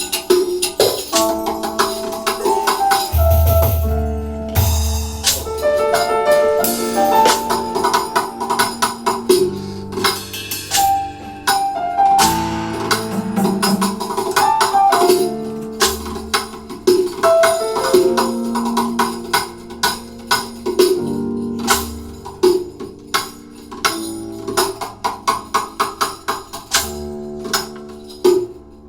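Instrumental music: a pitched melody of short notes over a steady tambourine and percussion rhythm.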